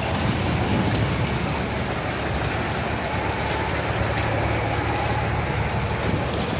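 Heavy rain pouring down and floodwater streaming through a street, a steady dense noise with a low steady hum underneath.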